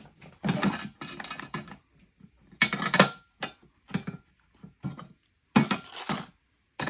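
Irregular clicks and clattery rattles of small hardware and hand tools, as a pan-head bolt, washer and nylon lock nut are fitted and tightened with a screwdriver and wrench.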